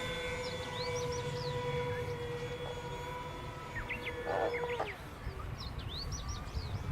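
Electric motors of an RC Avios Albatross HU-16 flying boat model whining at a steady pitch, stopping a little under five seconds in, with birds chirping and a low rumble of wind.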